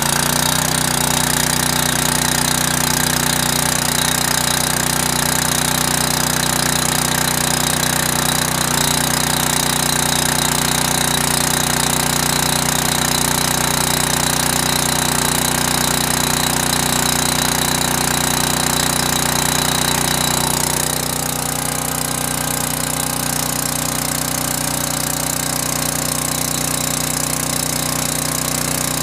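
Generac 5 kW portable generator's 10 hp Briggs & Stratton overhead-valve engine running steadily at governed speed just after a cold start, under the load of a light and a 1500-watt heater. About 21 seconds in, the sound drops slightly and turns duller, and the engine keeps running.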